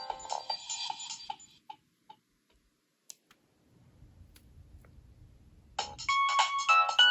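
Nokia 3300b ringtone playing through the phone's speaker: one melody fades out over the first second or so, a few faint clicks follow in near quiet, and a new ringtone melody of several notes starts near the end.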